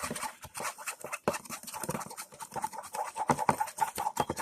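Stirring a thin soapy slime mixture in a container, with quick, irregular scraping of the stirring utensil against the container's sides and bottom.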